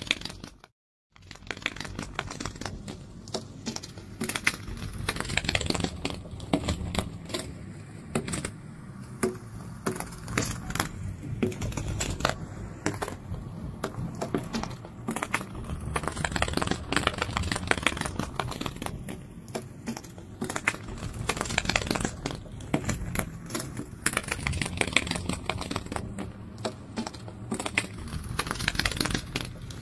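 Dense, irregular clicking and crackling, a fast rustling flutter, which cuts out for under a second near the start and then carries on.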